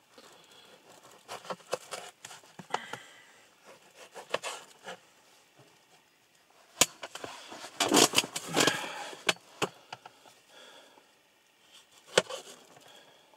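Rustling, scraping and light knocks of food and packaging being handled and set down, with a sharp click about 7 seconds in and a louder stretch of rustling around 8 to 9 seconds.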